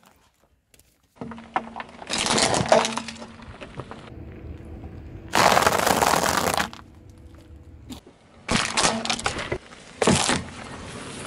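Car tyre rolling over and crushing objects: several separate passages of crunching and cracking, the longest and loudest about halfway, with a faint low steady hum underneath.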